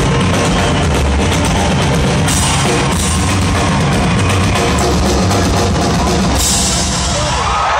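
Live rock drum solo on a full drum kit, amplified in an arena: dense bass drum and tom strikes, with cymbal crashes about two seconds in and again near the end.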